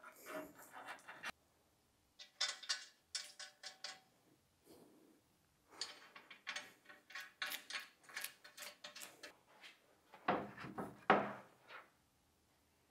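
Irregular clicks, knocks and light rattles of car body parts being handled and fitted by hand, with short quiet gaps; the loudest cluster of knocks comes near the end.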